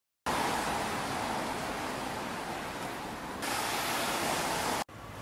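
Steady rushing street noise as a van drives past close by. It brightens about three and a half seconds in and drops to a quieter hiss near the end.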